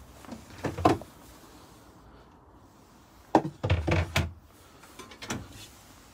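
Caravan kitchen fittings being opened and shut by hand, giving hollow knocks and clunks: one about a second in, a quick run of several louder ones around three and a half to four seconds, and a couple of softer ones near the end.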